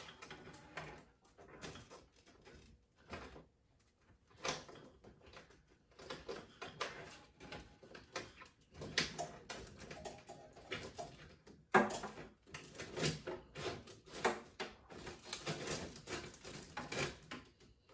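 A kitchen faucet's hoses being fed down through the mounting hole of a stainless steel sink: irregular scraping, rubbing and light knocks, with one sharper knock about two-thirds of the way through.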